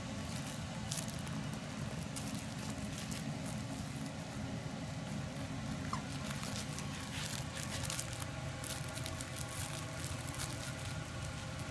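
Whippet puppies scuffling on a fleece dog bed: light scratching and rustling clicks scattered through, over a steady low hum, with one brief faint squeak about six seconds in.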